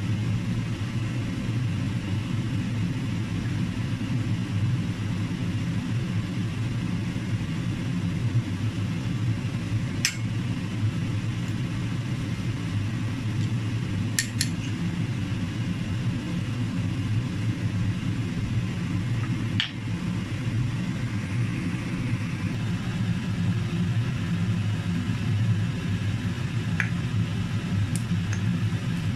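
A steady low rumble, with a few sharp clicks of a metal fork against a ceramic bowl as salted egg yolks are mashed.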